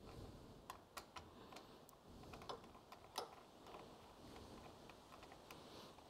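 Faint, irregular small clicks and taps of cable lugs and terminal hardware being handled and fastened onto a boat battery's terminals.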